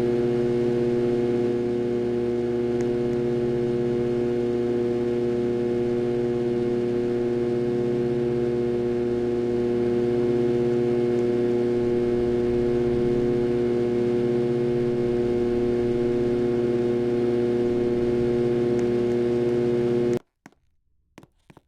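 Harbor Breeze Ocracoke ceiling fan motor running with a very loud, steady electrical hum, the sign of a bad motor. The hum stops abruptly near the end, followed by a few faint clicks.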